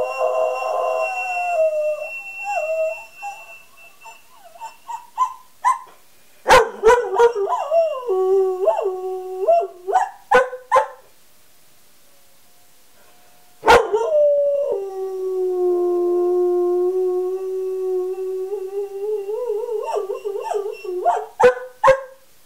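Greyhound rooing: a wavering howl that breaks into short yips and whines, falls silent for a couple of seconds near the middle, then starts again with one long held howl that breaks into yips near the end.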